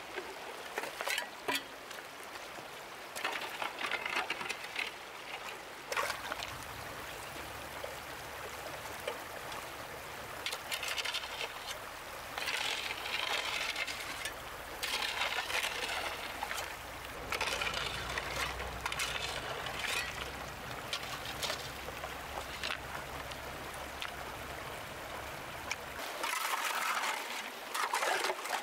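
Shallow stream water trickling, with louder splashing surges every second or two and a few sharp clicks.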